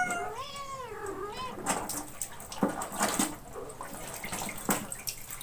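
A kitten meows once, a drawn-out meow that rises and falls in the first second and a half. It is followed by scattered splashes of water being scooped and poured over it with a dipper during a bath.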